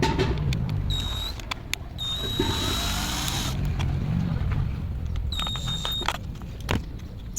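Electric power tool running in short bursts: a high whine that starts and stops several times, with clicks in between over a low rumble.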